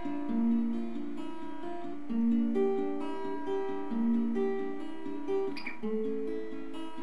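Guitar playing an instrumental passage of chords, notes ringing on, with a stronger stroke about every two seconds.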